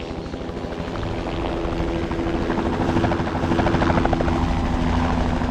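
Hughes 500C light helicopter, its turbine engine and rotor growing louder as it lifts off. A rapid rotor-blade chop is strongest about three to four seconds in.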